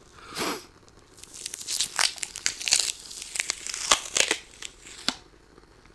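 Sticky adhesive sheet of a lint roller crackling and tearing. It gives a short burst near the start, then a dense run of sharp crackles and pops that stops about a second before the end.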